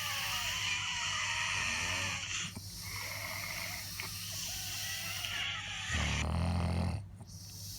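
Sleep snoring of a man with severe sleep apnea: two long, airy, rasping breaths with a wavering whistle in them. Then, about six seconds in, a loud, low snore lasting about a second.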